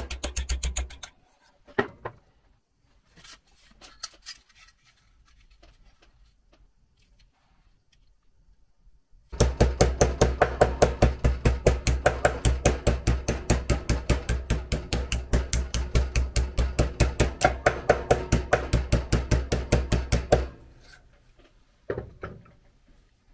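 A hammer tapping fast and evenly, several strikes a second, on a small sheet-steel part held against a steel vise, shaping a hand-made replacement part. The tapping stops briefly just after the start and resumes a few seconds later for a long run, with two single taps near the end.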